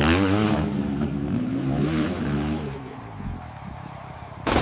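Hill-climb dirt bike engine revving hard, its pitch wavering up and down, then dying away after about three seconds. A short, sharp loud burst comes near the end.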